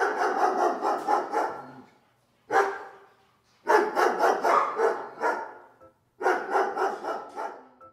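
Dogs barking rapidly in four bursts with short pauses between them, the sound of a dog pound's kennels.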